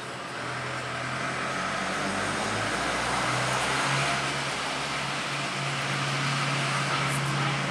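A motor running steadily: a low hum under a broad hiss, swelling over the first couple of seconds and then holding.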